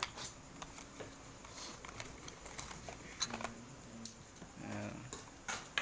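Scattered light clicks and taps of a handheld magnifier and its packaging being handled, with a faint low murmur now and then.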